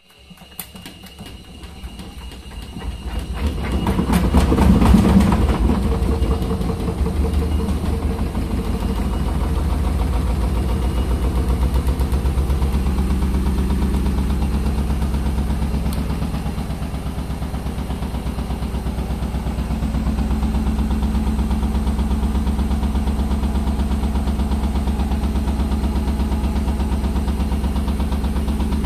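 Gorenje front-loading washing machine spinning up: the drum and motor rise in pitch and loudness over the first few seconds, are loudest about five seconds in, then run at a steady high spin with a fast, regular pulsing hum.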